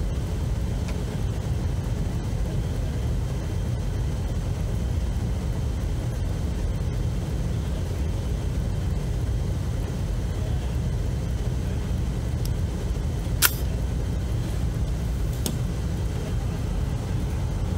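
Steady low background rumble, with one sharp click about thirteen seconds in and a couple of faint ticks around it.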